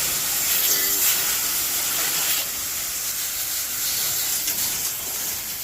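Garden hose spraying water in a steady hiss, washing down a parrot aviary.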